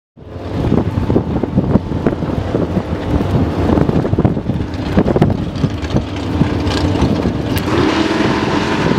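A Chevrolet Camaro and a Ford Mustang drag car running loud and uneven at the starting line. Near the end their revs start to climb.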